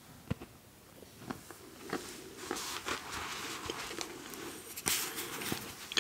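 Close-miked crackling and rustling with a few sharp clicks: a scattering of clicks early on, a longer crackly rustle in the middle, then two more clicks near the end.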